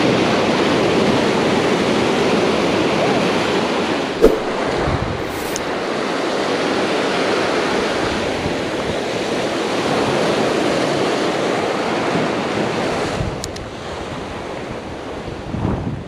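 Ocean surf washing against shoreline rocks at high tide, a loud steady rush of water that eases off about thirteen seconds in. A single sharp knock about four seconds in.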